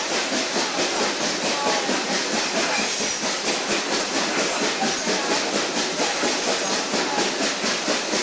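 A train running along the track, heard from an open car coupled to the locomotive: a steady rolling noise with a regular beat of about three a second and no whistle.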